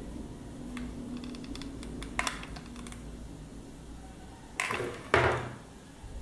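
Hot-glue handling noises as a cotton cord is glued onto a stuffed denim body: a few light ticks, a sharp click a little after two seconds, then two short rustles of cord and fabric about four and a half and five seconds in.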